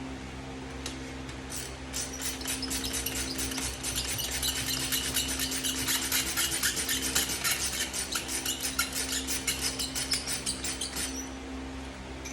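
Hand ratchet wrench clicking rapidly and evenly for several seconds while a bolt is worked loose during the teardown, over a steady low hum.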